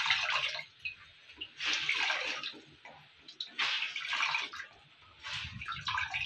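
A wet cloth being rinsed and wrung out in a plastic bucket of water, the water splashing and trickling back into the bucket in four bursts about two seconds apart.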